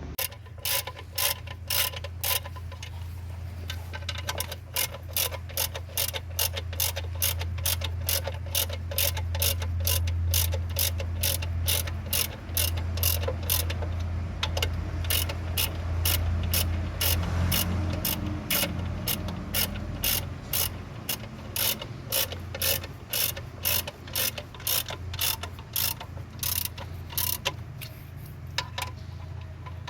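Hand ratchet wrench clicking in a steady rhythm, about two strokes a second, over a steady low hum.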